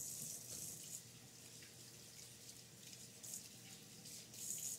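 Kitchen faucet running faintly while hands are washed under it, the splashing swelling and fading a few times.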